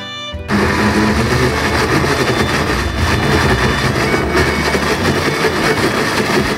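Electric blender switching on about half a second in and running steadily at full speed, grinding shallots, garlic and chilies with a little oil into a spice paste.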